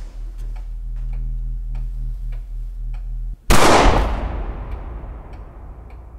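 A clock ticking steadily over a low drone, then a single loud gunshot about three and a half seconds in that rings out and dies away over the next two seconds.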